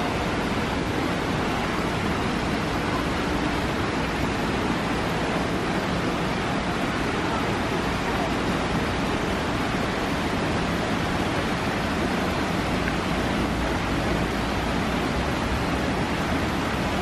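Heavy rain pouring down steadily onto concrete paths and grass: an even, unbroken hiss.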